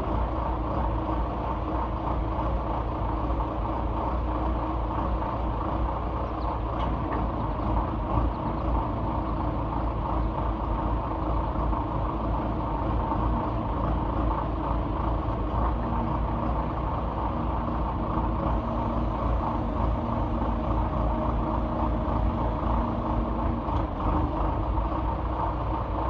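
Engine of a piece of construction equipment running steadily, an even low rumble with no change in speed.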